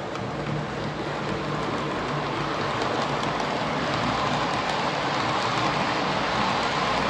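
Model train, a red and cream TEE diesel multiple unit, rolling past on its track: a steady rush and rattle of metal wheels on rails with a few faint clicks, growing louder as the train comes close.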